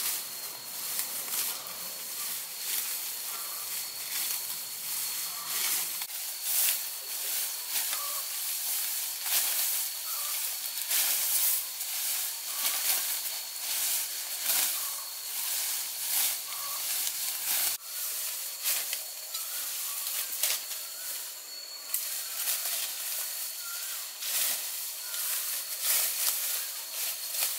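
Grass and leafy undergrowth rustling and being cut with a hand knife, in many short irregular swishes and snaps, over a faint steady high-pitched tone.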